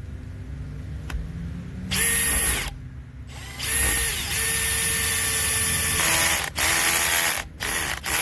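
Makita XPH07 brushless hammer drill in screw mode driving a 2-inch screw into oak, running in stop-start spurts with a steady motor whine. Toward the end the runs turn short and chattering as the T25 bit cams out of the screw head on the low setting 1, so the screw will not drive fully in.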